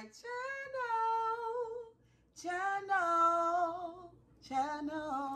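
A woman's voice singing the drawn-out greeting "welcome back to my channel" in three long held notes with vibrato, separated by short breaths.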